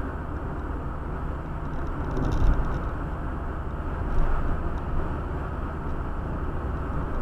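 Steady road and engine rumble inside a moving car, with a couple of brief louder swells.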